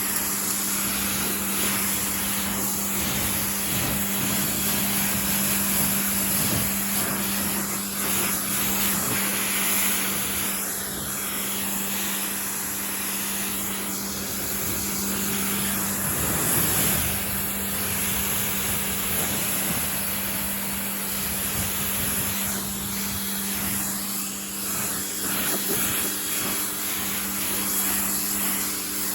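Pressure washer running with its stock nozzle, a steady motor hum under the hiss of the water spray as it rinses foam off a car.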